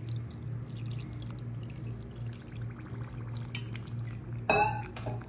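Water being poured into a glass bowl of semolina, beaten rice flakes and curd, with light trickling and dripping and a brief louder pour about four and a half seconds in.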